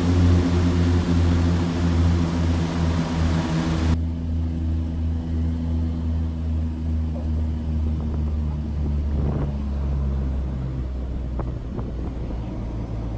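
Propeller plane's engines droning steadily as it lands, with a loud rushing noise over the drone for the first few seconds, as in the cockpit. After that the drone carries on more quietly and fades near the end, with a few faint knocks.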